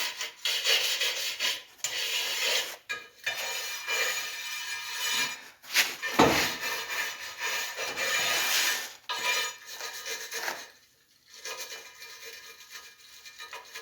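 Hand wire brush scraping the rubber inner liner of a tire in rough back-and-forth strokes, cleaning the area around the leak so the patch will seal. There is a sharp knock a little after halfway, and the scraping grows sparser and quieter near the end.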